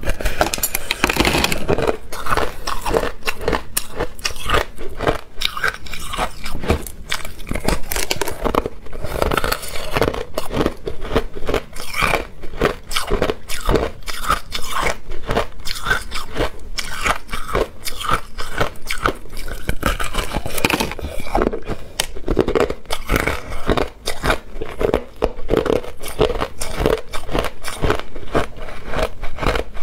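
Crushed ice being bitten off a frozen mound and chewed: a dense, continuous run of crisp crunches with no pause.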